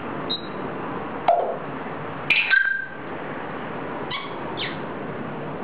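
African grey parrot giving short chirps and whistled calls, about five in all with the loudest cluster about two and a half seconds in, over a steady background hiss.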